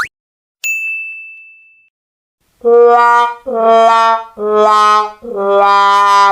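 A ding rings out about half a second in. Then a sad trombone sound effect plays: a muted 'wah-wah-wah-waaah' of four notes, each a step lower than the last, the last held long with a wobble, the classic comic sound for failure.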